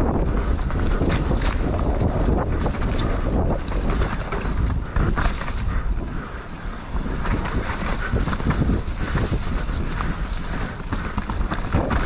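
Wind buffeting a helmet-mounted GoPro's microphone as a mountain bike rolls down a dirt singletrack, with many short rattles and knocks from the bike and tyres over the rough trail.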